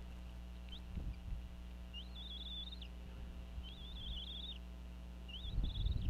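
Bald eagle squeeing: four high, thin calls about every one and a half seconds, each sliding up and then holding a wavering, stuttering note. A steady low hum runs underneath, and a low rumble starts near the end.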